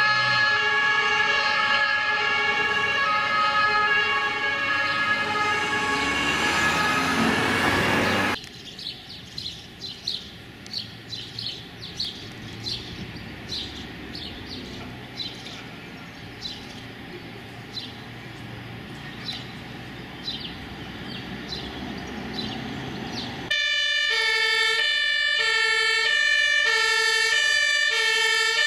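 German fire engines' two-tone sirens (Martinhorn), with an emergency vehicle approaching and passing; after a sudden cut the sirens stop and short high chirps like small birds are heard over quiet street sound. About 23 seconds in a loud two-tone siren starts abruptly as fire vehicles approach, led by a Ford Transit command vehicle.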